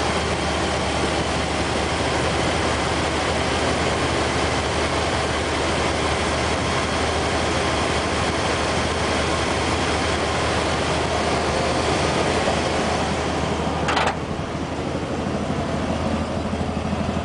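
Ford 351 Windsor V8 with a Holley four-barrel carburettor idling steadily shortly after a cold start, heard close to the open engine bay. About 14 seconds in there is a short knock, after which the running sound is a little quieter and lower.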